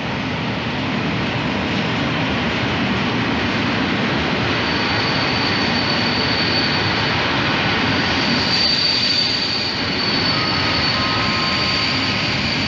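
An electric-hauled container freight train passing close by, with a steady rumble of wheels on rail. From about four seconds in, a thin, high, steady squeal rides over the rumble.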